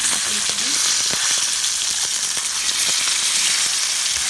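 Whole climbing perch (koi fish) frying in hot oil in a pan: a steady, loud sizzle. A few light knocks sound as the fish are turned over once the first side has browned.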